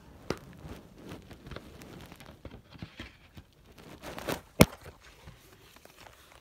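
A plastic DVD case being handled: soft rustling with a few sharp plastic clicks, the loudest about four and a half seconds in.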